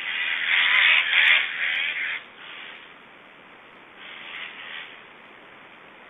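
Black stork nestlings calling from the nest: a loud, hoarse, unpitched call for about two seconds, then fainter ones around four to five seconds in.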